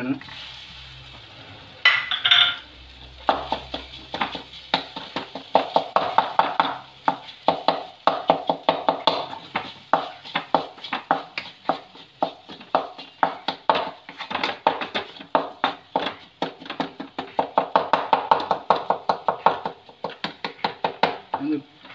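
Wooden spatula scraping and knocking against a metal kadai in quick repeated strokes, about three a second, as boiled egg yolks are mashed into onion masala. A brief clatter about two seconds in as the yolks are tipped into the pan.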